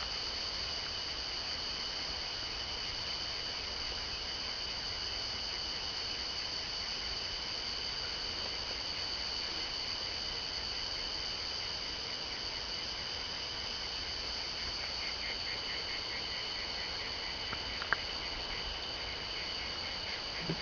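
Chorus of night insects shrilling steadily at two high pitches. A fast pulsing trill joins in for a few seconds past the middle, and a single sharp click sounds near the end.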